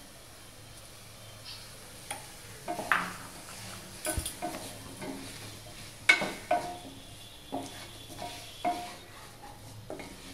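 A spatula stirring potatoes and masala in a stainless steel sauté pan, with irregular knocks and scrapes against the pan. The loudest knock comes about six seconds in.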